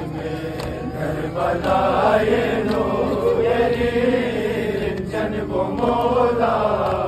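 Men's voices chanting a noha, a Shia Muharram mourning lament, in a slow held melody over the murmur of a large crowd.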